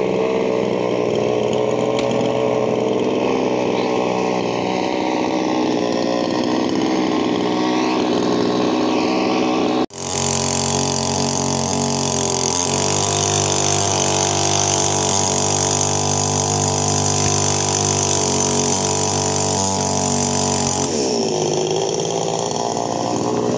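Kingpark petrol chainsaw running at high speed while cutting logs. The sound breaks off for an instant about ten seconds in. Near the end the engine note dips and then climbs back up.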